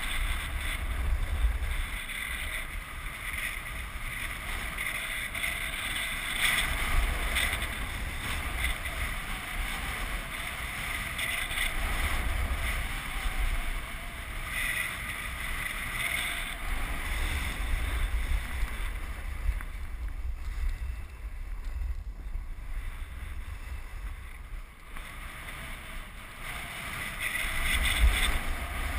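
Snowboard sliding down groomed snow, its edge hissing and scraping in swells as the rider turns, with wind rumbling on the microphone.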